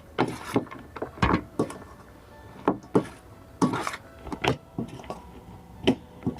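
Irregular knocks and clinks of kitchen utensils against a bowl as the chatpate is mixed, about a dozen sharp strikes spread unevenly.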